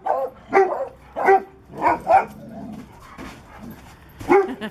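A dog barking in rough play with other dogs: a quick run of about five barks, a pause, then another bark near the end.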